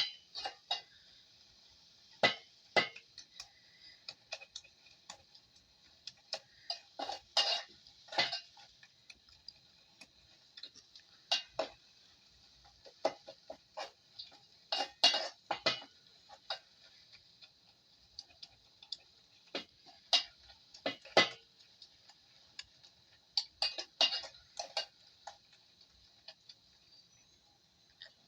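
A metal spoon clinking and knocking against a cooking pot in irregular bursts, as when food is stirred in the pan, over a steady faint high hiss.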